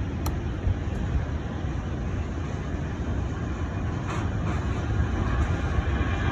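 Jet airliner's engines: a low rumble with a hiss above it, growing steadily louder as the aircraft comes closer.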